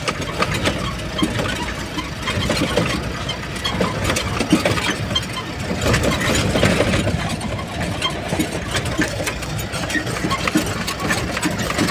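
Truck engine running steadily, heard from inside the cab while driving over a rough, unfinished gravel road, with frequent small rattles and knocks from the cab jolting on the uneven surface.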